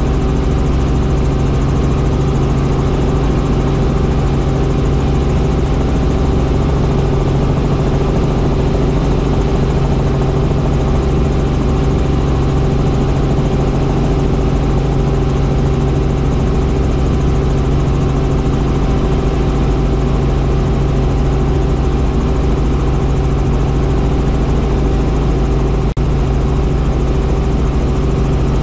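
Small tour helicopter in flight, heard from inside the cabin: a loud, steady drone of engine and rotor with several fixed low tones. There is one brief click near the end.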